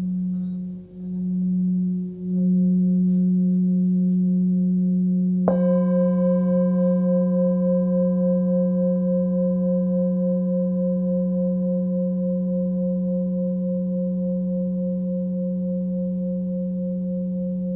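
Hand-forged Nepalese singing bowl, 19.7 cm across and pitched at 181 Hz (F#), sung with a mallet around the rim. Its deep hum wavers at first, then holds steady. About five and a half seconds in it is struck once, adding bright higher overtones with a slow pulsing beat, and these fade gradually over the hum.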